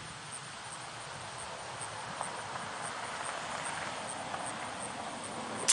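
Outdoor wind noise, a steady hiss that grows louder from about two seconds in. Right at the end comes the sharp crack of a Beeman QB78 CO2 air rifle shot.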